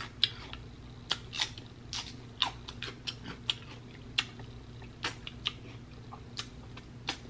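Close-miked chewing: wet mouth clicks and lip smacks at an irregular pace of a few a second, from a person eating sticky barbecue-sauced beef ribs.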